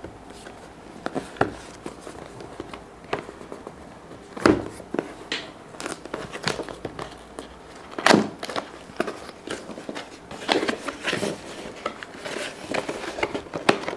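Cardboard camera box being handled and opened by hand: scattered light clicks, taps and rustles of the box and its flaps on a table, with two louder knocks about four and eight seconds in.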